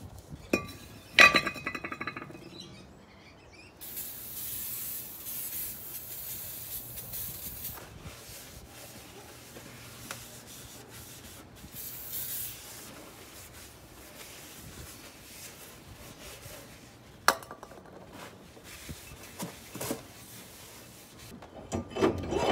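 Brake work on bare metal parts: a loud ringing metal clink about a second in, then aerosol brake cleaner spraying in a long hiss and a shorter burst later. A sharp knock follows, and metal clunks near the end as a new disc brake rotor is fitted onto the hub.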